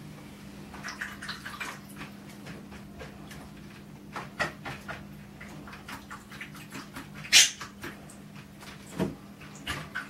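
Pet budgerigars giving scattered short chirps and clicks, with one louder, sharp sound about seven seconds in, over a steady low hum.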